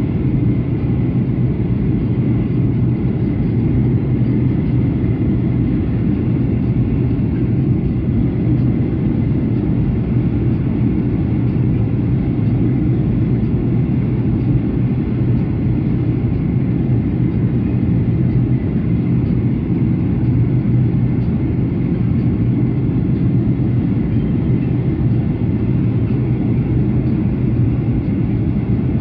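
Steady in-flight cabin drone of a Boeing 737-800 with CFM56-7B engines: a constant low rumble of engine and airflow noise with a steady hum, heard inside the cabin.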